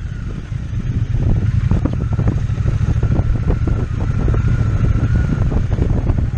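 Triumph T120 parallel-twin motorcycle engine running under way, with wind buffeting the microphone.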